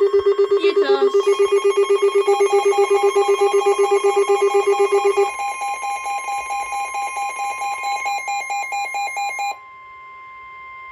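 Emergency alert tones for a flash flood warning, several at once: a low electronic beep pulsing about eight times a second that stops about five seconds in, a higher pulsing beep that carries on until about nine and a half seconds, and a steady high warning tone underneath that outlasts both.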